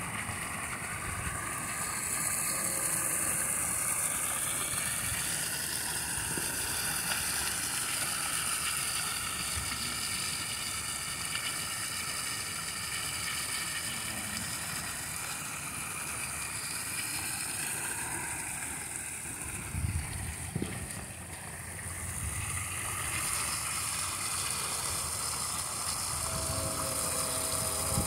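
Steady splash of water pouring from an outdoor standpipe spigot into a plastic kiddie pool, with a few low bumps about two-thirds of the way in.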